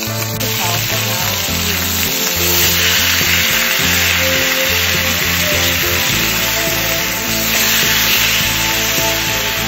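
Steak sizzling as it sears, under background music with a moving bass line.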